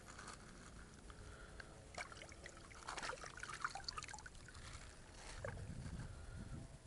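Water trickling and splashing around a floating mesh keepnet as it is lifted and a fish is dropped in. Scattered light crackles, busiest in the middle, come with the handling.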